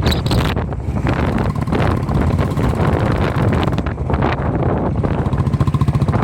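Wind buffeting the microphone: a loud low rumble and rushing noise, with a fast fluttering pulse about five seconds in.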